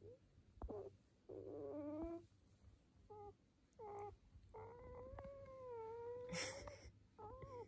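Newborn puppies whimpering and squeaking: a string of short, high whines, then a longer wavering whine about five seconds in, with a brief rustle of handling near its end.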